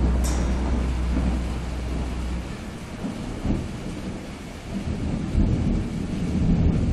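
Thunder and steady rain: a deep rumble that dies away about two and a half seconds in, leaving the even hiss of rain.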